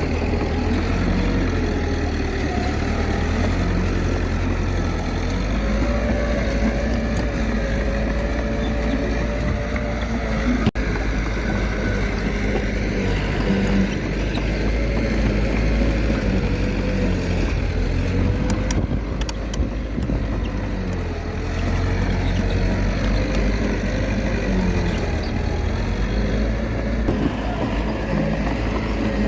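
Komatsu D21A mini bulldozer's diesel engine running under load, its pitch dipping and recovering every few seconds as the blade pushes rock and soil.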